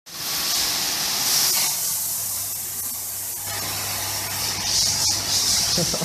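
High-pressure water jet from an HTP shed-cleaning pump's hose spraying onto a concrete cow-shed floor, a steady hiss. The pump motor hums steadily and low underneath.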